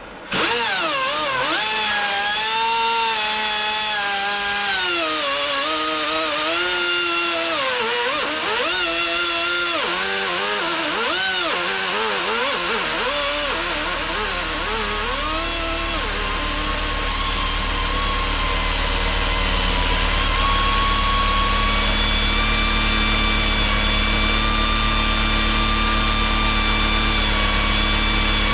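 Pneumatic angle grinder running free with a hissing air whine that starts abruptly. Its pitch wavers up and down for about fifteen seconds, then settles into a steady whine with a low hum. The grinder has significant bearing play and doesn't sound healthy.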